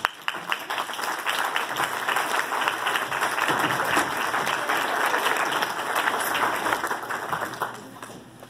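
Theatre audience applauding: a dense patter of many hands clapping that starts suddenly and fades out near the end.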